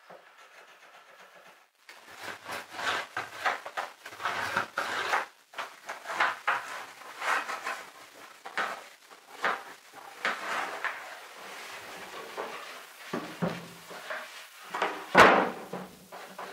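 Plywood cabin-sole boards and tools being handled and fitted: a run of irregular short scrapes and rubs starting about two seconds in, with one sharp wooden knock near the end.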